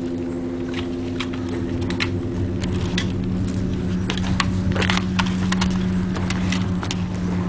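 Footsteps crunching on loose gravel and stones in short irregular clicks, over a steady low droning hum made of a few held tones, one of which swells about two and a half seconds in.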